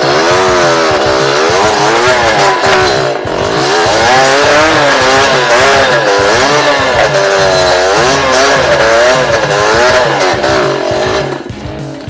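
Two-stroke Yamaha DT 125 engine revving up and down over and over, roughly once a second, under load as the bike is worked over rocks on a steep climb. The revving drops away about a second before the end.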